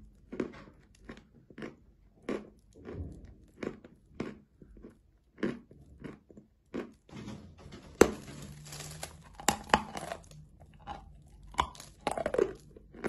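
Close-up chewing and crunching of a mouthful of eating chalk, with crunches coming at an even pace. About eight seconds in there is a sharp crack, followed by a couple of seconds of denser crackling crunches.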